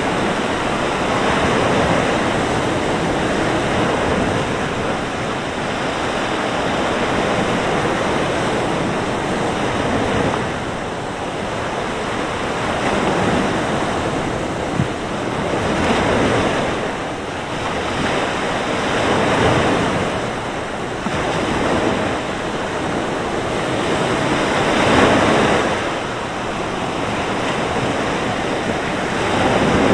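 Sea waves breaking and washing up the shore in a continuous rush that swells and eases every few seconds, with wind blowing over it.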